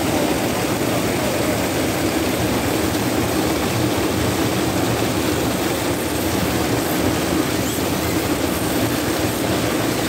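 Waterfall rushing: a steady, even roar of falling water over rock.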